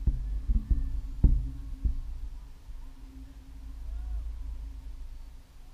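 Low rumble of wind buffeting the camera's microphone, with about five dull thumps in the first two seconds and a faint steady hum.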